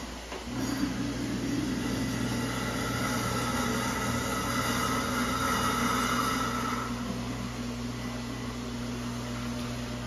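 Robot vacuum cleaner running on a hardwood floor: a steady motor hum with a higher whine over it that fades about seven seconds in.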